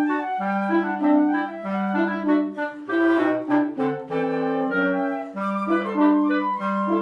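A Marine Corps band's wind ensemble playing a multi-part Christmas piece with clarinets to the fore. Several parts move over a low note that is held and repeated, and the low part briefly changes a little past the middle.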